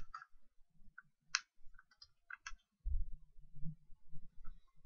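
Computer mouse and keyboard clicks: about half a dozen short, quiet clicks in the first half, then a faint low rumble.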